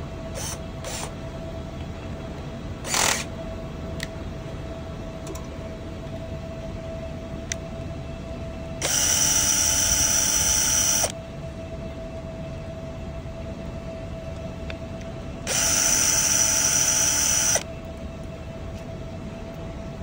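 Cordless drill-driver running twice, each time for about two seconds, turning the small screws that hold the micro switch on a tankless gas water heater's valve.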